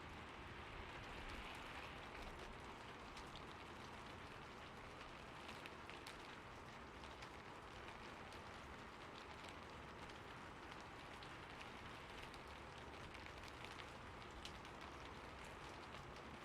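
Rain falling on a rooftop: a faint, steady hiss with many scattered sharp drop ticks.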